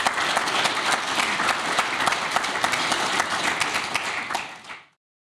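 Audience applauding, a dense run of many hand claps that fades out near the end.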